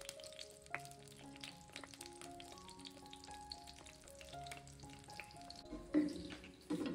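Beaten egg sizzling and crackling in a non-stick frying pan, with a louder scrape of the metal spatula against the pan about six seconds in.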